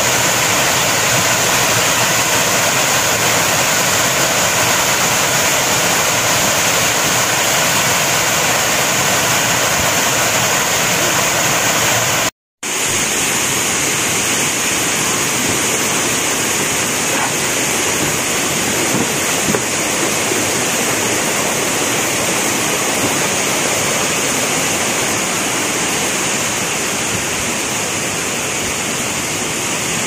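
Steady rush of a tall waterfall pouring over rock ledges into its plunge pool. About twelve seconds in, the sound cuts out for a moment, then a similar steady rush of water resumes, a little quieter.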